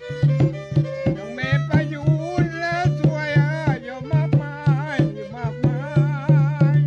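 Rong ngeng folk music: a hand drum beats a steady rhythm under a violin. A man sings a wavering melodic line over it from about a second in until about five and a half seconds.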